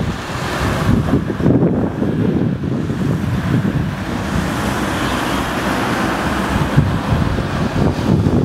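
Steady city street traffic, with cars driving past close by.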